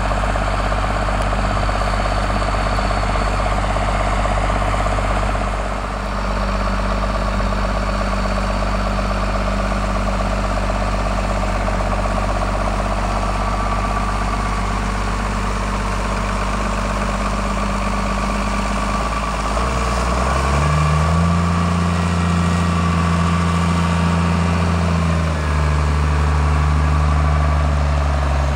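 Case MX110 tractor engine running steadily under load while pulling an umbilical slurry hose. Its note rises about two-thirds of the way through, then eases slightly a few seconds later.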